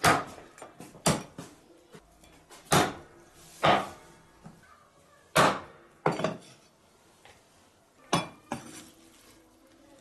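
Meat cleaver chopping a whole chicken into pieces on a wooden chopping board: about eight heavy, unevenly spaced chops with lighter knocks between them.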